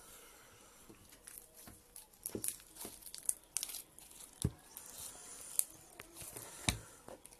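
Homemade glitter slime with beads mixed in, squeezed and pulled by hand: irregular sticky pops, clicks and crackles, a few of them sharper and louder.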